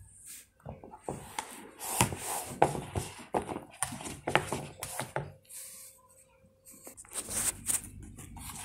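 Metal spoon stirring and scraping sticky pizza dough around a plastic bowl: irregular soft knocks, scrapes and squelches, with a short pause a little past halfway.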